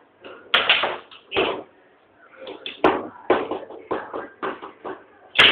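Foosball table in play: a run of sharp knocks as the ball strikes the player figures and the table walls, with a quieter gap of about a second near the middle.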